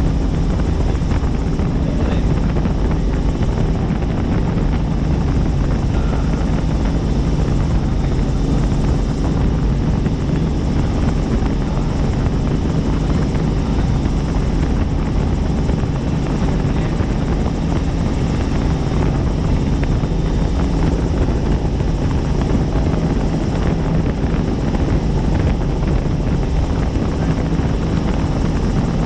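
Helicopter in flight: steady, loud rotor and engine noise with a constant low hum.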